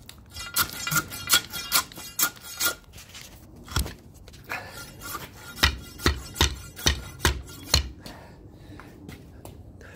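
A steel probe rod jabbed repeatedly down a hole drilled through a concrete slab, striking the top of a buried oil tank: a run of metallic clinks with a short ring, about two to three a second. There is a pause a few seconds in, the strikes in the second half land as heavier thuds, and the last two seconds hold only faint clicks.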